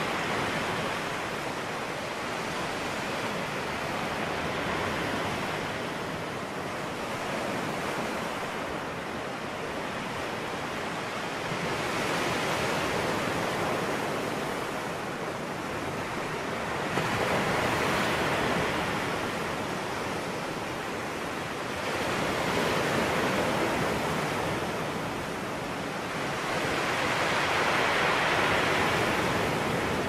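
Ocean surf breaking and washing ashore: a steady rush that swells and ebbs with each wave about every four to five seconds, loudest near the end.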